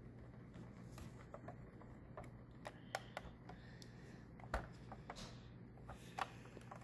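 Scattered faint clicks and taps, irregular and about a dozen in all, over a steady low hum.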